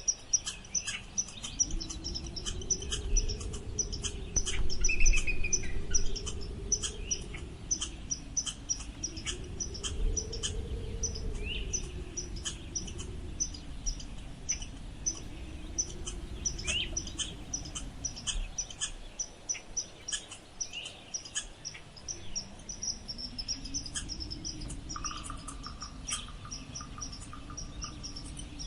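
Wind blowing in slow gusts with a low rumble, swelling and easing every few seconds and dropping away for a few seconds about two-thirds of the way in. Over it runs an even, rapid high chirping like crickets, with a few short gliding bird calls and a brief trill near the end.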